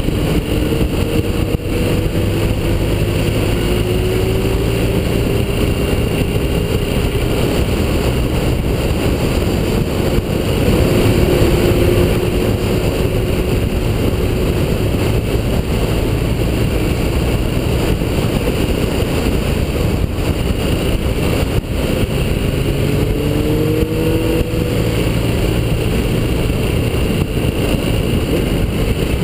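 BMW motorcycle's engine running at road speed, recorded from a camera mounted on the bike, mixed with wind rushing over the microphone. The engine note climbs gently in the first few seconds and again about three-quarters of the way through as the rider accelerates.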